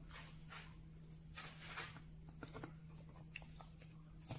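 Faint rubbing and scraping of wood being handled, with a few light clicks and a small knock near the end as a wooden finger pull and strip are fitted against a panel. A steady low hum runs underneath.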